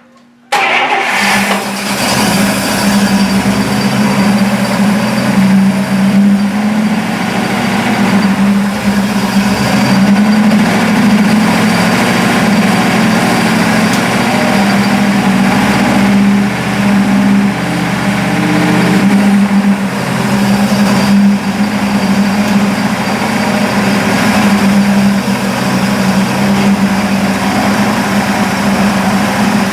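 1955 Buick's 322 Nailhead V8 running loud and steady, coming in suddenly about half a second in.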